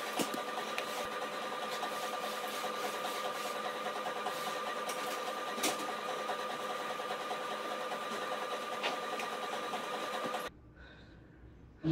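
A small electric motor running steadily with an even hum and a fine, rapid rhythm, stopping abruptly about ten and a half seconds in.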